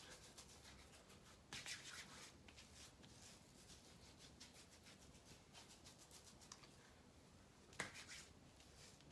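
Faint scratchy rubbing of hands lathering beard shampoo into a wet beard, loudest about a second and a half in. A single sharp click near the end.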